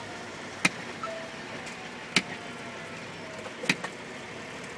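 Truck windshield wipers sweeping the rain-wet glass, knocking sharply at each stroke about every second and a half (three times), over the steady road noise inside the cab.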